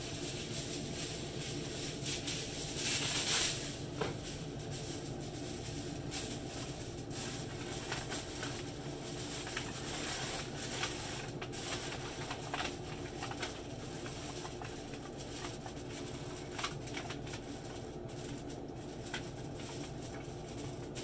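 Aluminium foil being pulled and torn off the roll, loudest a couple of seconds in, then crinkling and rustling in short bursts as the sheet is pressed and crimped over a pan, over a steady low hum.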